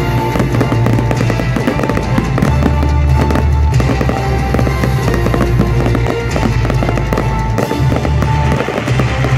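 Aerial fireworks bursting and crackling in rapid succession over loud music with sustained deep bass notes.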